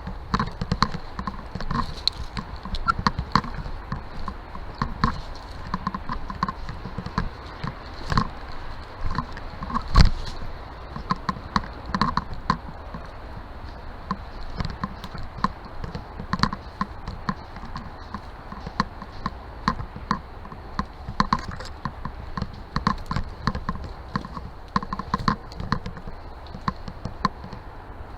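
A run of irregular taps, knocks and rustling over a steady low rumble, with one sharper knock about ten seconds in.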